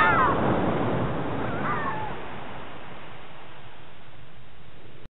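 Ocean surf washing steadily, with a seagull giving a falling call at the start and again about two seconds in.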